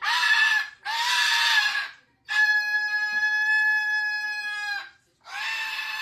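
Moluccan cockatoo screaming: a string of loud, drawn-out calls with short breaks between them, the one in the middle held steady for about two and a half seconds.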